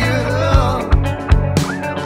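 Background music: a song with a steady drum beat and a melody line over it.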